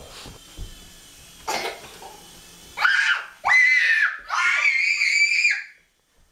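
A young child screaming three times in quick succession, high-pitched and loud, starting about halfway through.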